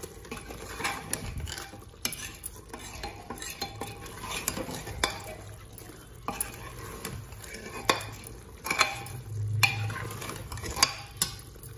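Metal ladle stirring and scraping minced meat and spices in a pressure cooker pot, with sharp knocks of the ladle against the pot's sides at irregular intervals, over the sizzle of the meat frying in oil.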